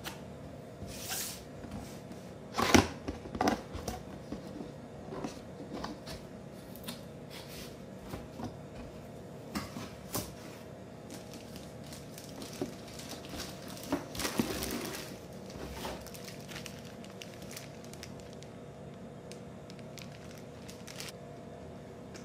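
Cardboard box and its plastic wrapping being handled while unpacking: scattered knocks and scrapes of the box flaps and lid, and crinkling rustles of the plastic bag. The loudest knocks come about three seconds in, with a longer burst of rustling near the middle.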